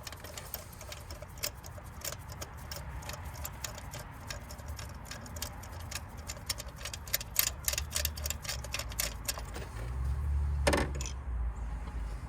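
Hand ratchet clicking in quick, irregular runs as fasteners are worked on the engine. Near the end there is a low rumble and one louder knock.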